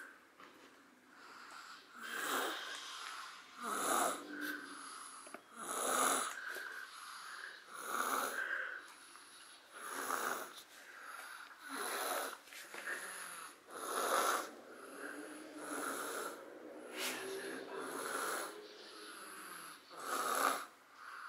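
Rhythmic snoring from someone fast asleep: about ten rasping, wheezy snores, roughly one every two seconds.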